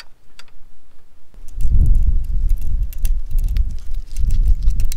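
Low, gusty rumbling buffets the microphone from about a second and a half in, over faint metal clicks of a spanner tightening the rear axle nuts of an electric bike.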